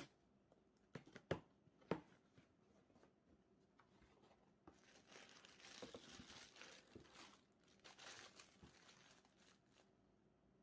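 A cardboard shipping box torn open by hand, with a few sharp rips in the first two seconds. Then bubble wrap crinkles for about five seconds as the wrapped item is handled and lifted out.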